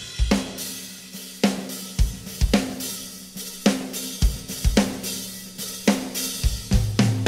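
Live worship band playing: a drum kit with regular cymbal, hi-hat and kick hits over a held chord, with an Alleva Coppolo LG5 five-string bass guitar. The bass's low notes come in fuller about six and a half seconds in.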